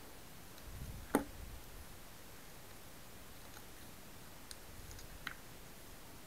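Faint handling clicks as a plastic micro servo case is opened with a small screwdriver: one sharp click about a second in, then a few light ticks.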